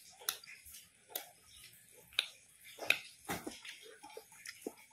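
Close-up eating sounds of a meal eaten by hand: an irregular string of sharp mouth smacks and clicks while chewing, about eight in all.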